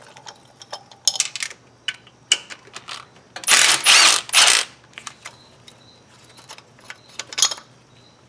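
Socket ratchet clicking as the bolts of an engine's thermostat housing are backed out: three quick runs of clicks a little after three seconds in, with scattered single clicks and clinks of tool and metal around them.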